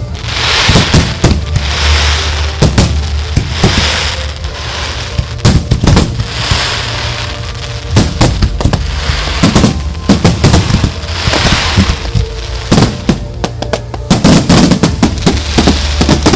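Display fireworks shells firing and bursting close by, a dense run of loud sharp bangs with stretches of hissing crackle between them.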